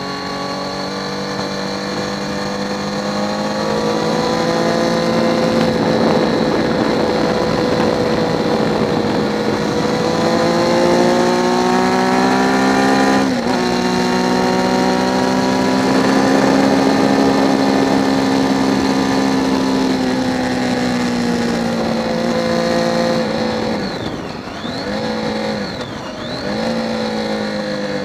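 Triumph Daytona 675's inline-three engine and exhaust running hard at high revs on track, holding a fairly steady pitch with a brief break about halfway through. Near the end the revs dip and pick up again twice. Wind rush runs underneath.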